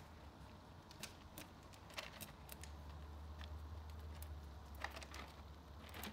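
Scattered light clicks and taps from two ferrets scrambling and grappling in a wire cage, over a faint steady low hum.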